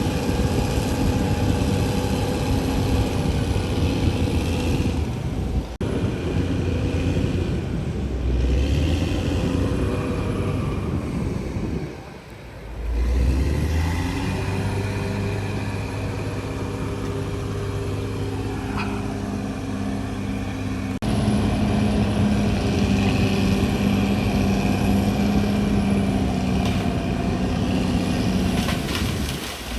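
Caterpillar D6R XL bulldozer's diesel engine running under working load, its pitch shifting as the load changes. It eases off briefly about twelve seconds in, then picks up again with a deep rise.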